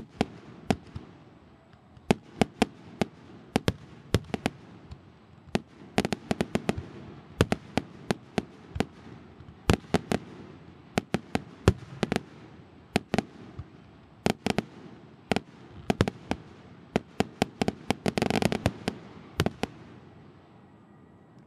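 Aerial fireworks bursting: a long, irregular string of sharp bangs, at times several a second, growing densest about eighteen seconds in.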